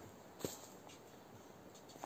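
Quiet footsteps on a hard, gritty floor, with one sharp tap about half a second in.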